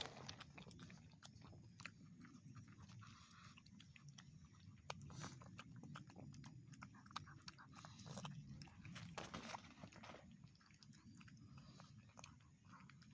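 Shih Tzu eating, faint irregular crunching and chewing of its food.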